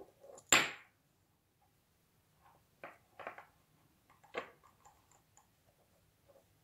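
Handling noise from paracord being worked into a knot around a metal snap hook: one sudden loud rustle-and-knock about half a second in, then a few softer clicks and rustles.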